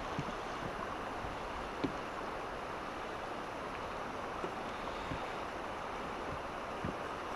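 Steady rushing of a fast river's current flowing past, with a few faint ticks, the clearest about two seconds in.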